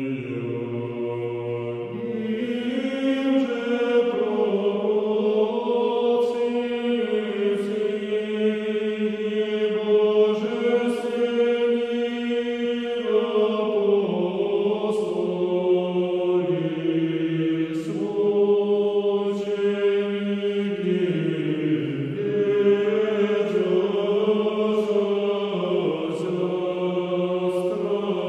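Orthodox church chant sung slowly by voices holding long notes that change pitch together every second or two, with the consonants of the sung words faintly audible.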